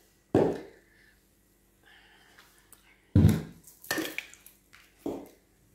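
Four dull thuds and clunks of a plastic blender jug being handled and set down on its motor base, with the blender motor not running.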